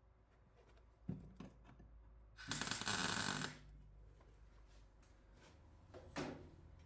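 Metalwork handling sounds: a couple of sharp knocks, then a harsh scraping burst lasting about a second, the loudest sound, and another knock near the end.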